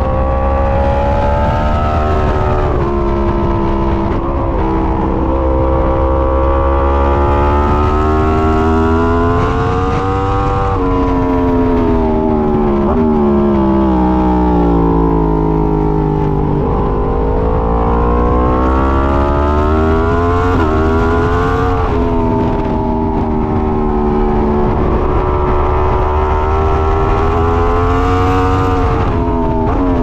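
Yamaha R1 superbike's crossplane inline-four engine heard from onboard at race pace. The pitch climbs hard through the revs and drops sharply at each gear change, then falls away in long slides as the bike slows for corners.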